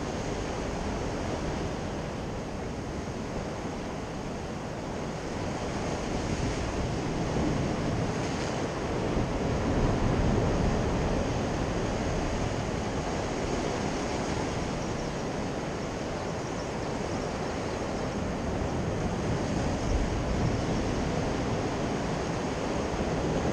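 Sea surf washing and breaking against the shoreline rocks, a continuous rush that swells louder about ten seconds in.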